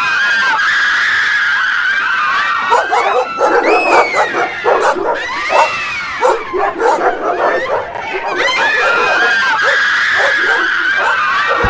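A dense chorus of many overlapping shrill cries and yelps, each rising and falling in pitch, over a steady high ringing tone that is strongest at the start and again near the end.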